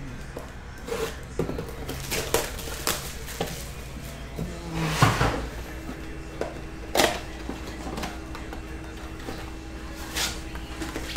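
Cardboard Topps Chrome mega box of baseball cards being handled and opened by hand: scattered taps and scrapes of the cardboard, with a longer rustle about five seconds in as the box is opened.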